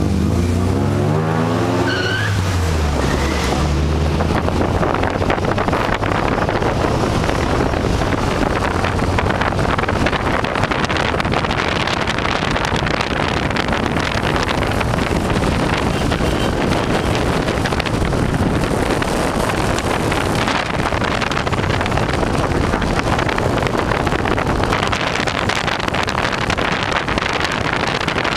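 Steady rush of wind and road noise from riding in an open-top car at speed, with music fading out in the first few seconds.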